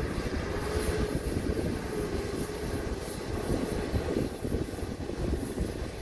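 Diesel engine of a loaded dump truck running as the truck drives slowly over rough dirt: a steady low rumble with a faint whine in the first few seconds.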